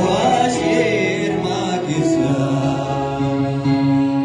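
A man singing a Kunama-language gospel song (mezmur) into a microphone, with held notes over sustained electronic keyboard chords.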